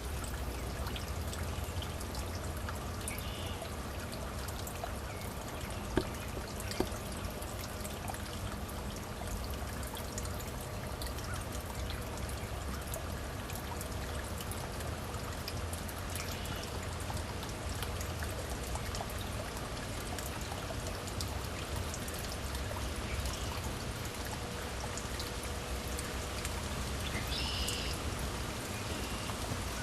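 Small stream flowing and trickling steadily. Two brief sharp knocks come about six seconds in.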